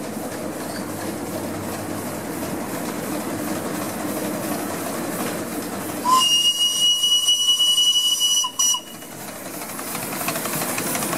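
Roger Marsh Romulus-class miniature live-steam locomotive, a 0-4-0 well tank, running along its track, then sounding its steam whistle about six seconds in: one high-pitched steady blast of about two and a half seconds, broken briefly just before it ends.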